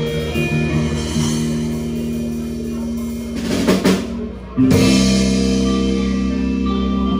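Live blues band playing, with electric guitar, bass and drum kit. About three and a half seconds in comes a short drum fill and a brief drop, then the band comes back in on a loud held chord.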